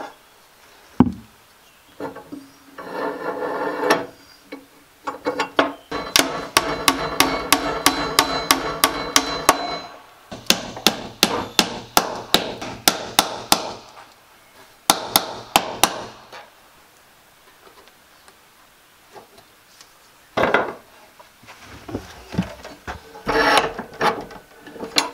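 Hammer tapping small nails through black iron strap hinges into a wooden plank door: runs of quick, even taps, about four a second, with pauses between them and a few scattered knocks near the end.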